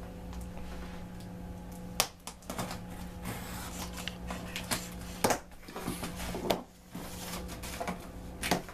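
A knife slitting the packing tape on a cardboard shipping box and the flaps being pulled open: a run of sharp clicks, scrapes and cardboard rustles starting about two seconds in, over a steady low hum.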